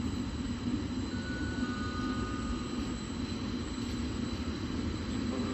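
Container freight train's wagons rolling past on the rails: a steady low rumble of wheels on track, with two faint thin tones heard briefly about a second in.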